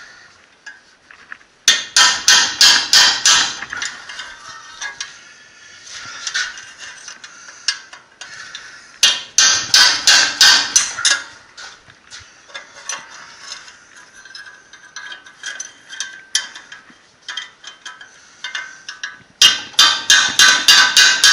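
A hammer beating on the metal of a Jaguar XJ rear hub assembly in three quick runs of sharp blows, about five a second: about two seconds in, about nine seconds in, and near the end. Quieter knocks and clinks of the parts being handled come between the runs.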